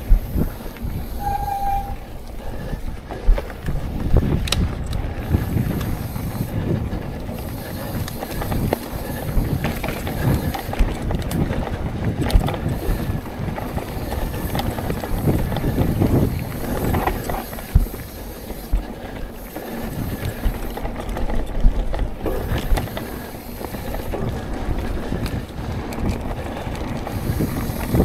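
Mountain bike descending a rough dirt singletrack: tyre noise and the bike rattling and knocking over bumps, with wind buffeting the microphone. A brief high tone sounds about a second and a half in.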